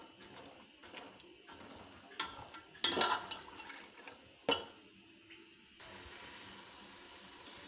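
Metal slotted spoon stirring chickpeas through a wet masala in a metal pot, with soft liquid sloshing and a few sharp clinks of spoon on pot, the loudest about 3 and 4.5 seconds in.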